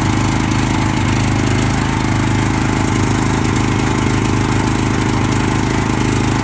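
Small portable gasoline generator engine running steadily at constant speed with its breaker on, working again after stale, gummed fuel was cleared from it.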